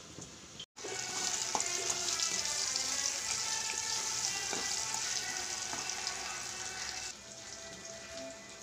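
Chopped onions sizzling in hot oil in a kadai while a steel ladle stirs them, with occasional ladle clicks against the pan. The sizzle starts abruptly just under a second in and cuts off about a second and a half before the end, leaving a quieter background.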